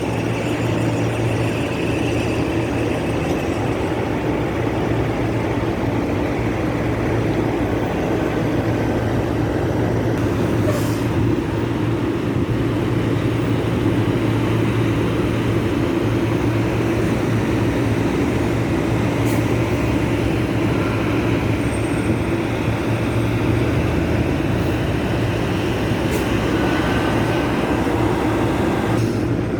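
Heavy trucks idling, a steady low engine hum that holds level throughout, with no horn blasts.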